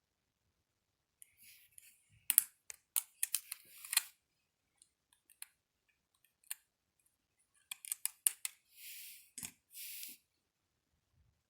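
Clusters of sharp little clicks and taps, with two short scraping sounds near the end: small tools and smartwatch parts being handled during a repair.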